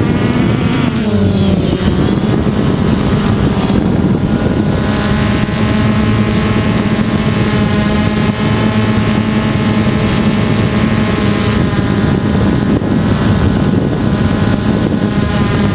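DJI Phantom quadcopter's electric motors and propellers whining steadily in flight, heard from the camera on the drone itself. The pitch drops in the first second or two, then holds level.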